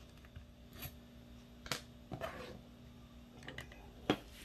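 A handful of light, separate clicks and knocks from a Ver3 airsoft gearbox being handled: the metal shell halves are opened and gears are lifted out.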